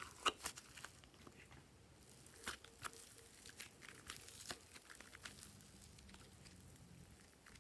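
Soft rainbow clay and fluffy slime being squeezed and stretched by hand, giving faint scattered crackles and small pops.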